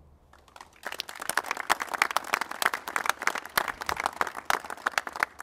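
A small crowd applauding: many quick hand claps start about a second in and die away just before the end.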